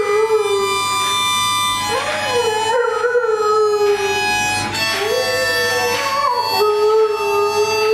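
Dalmatian howling along to a harmonica: a run of long, wavering howls, breaking off and starting again every couple of seconds, over steady harmonica chords.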